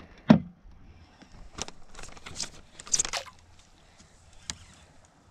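Handling noises in a fishing boat: a sharp thud a third of a second in, then a few light clicks and a short rustling scrape around two to three seconds in.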